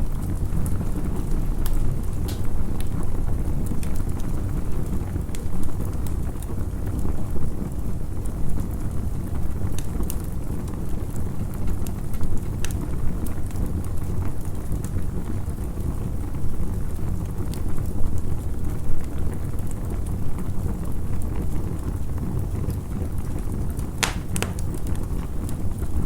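Campfire burning: a steady low rumble with scattered sharp crackles and pops, a quick pair of pops near the end.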